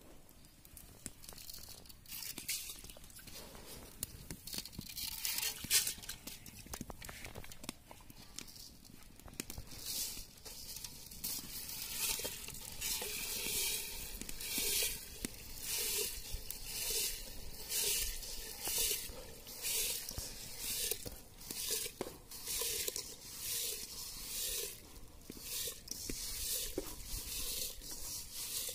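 Uncooked rice grains swept by hand across an aluminium bowl and trickling into a pot of water: a scratchy rustling hiss that comes in sweeps about once a second from roughly ten seconds in, quieter and more scattered before that.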